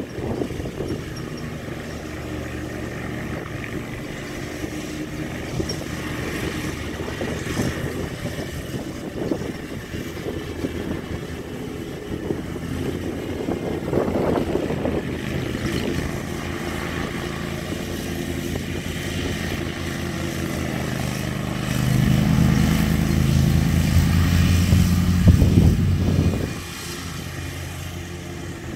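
Zero-turn riding mower's engine running steadily while cutting grass. It grows louder for about four seconds near the end, then drops back.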